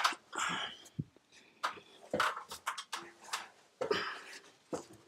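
Irregular scuffs, knocks and rustles of a person on the move with a handheld camera, stepping down out of an attic and through the house.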